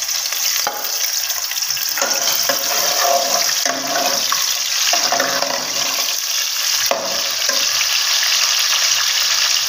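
Sliced onions sizzling loudly as they fry in hot oil in an aluminium pot, stirred with a metal ladle. There is a sharp knock about a second in and another about seven seconds in.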